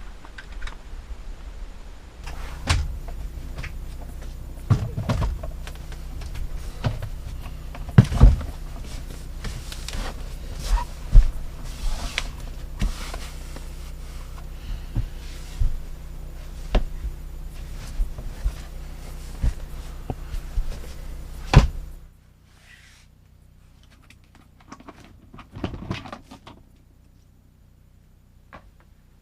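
Repeated knocks and thuds of things being moved and handled in a small room, over a steady hum that cuts off suddenly about 22 seconds in; after that only a few faint knocks.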